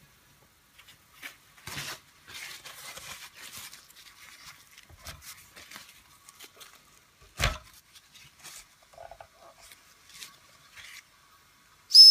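Faint scattered crackles and ticks, with one sharp knock about seven seconds in, then the Doll dual-boiler toy steam engine's steam whistle opening with a loud, high, steady blast right at the end.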